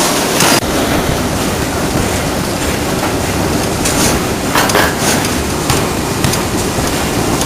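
Ring rolling machine running: a steady, loud mechanical noise with a few short knocks, a cluster of them about four and a half seconds in.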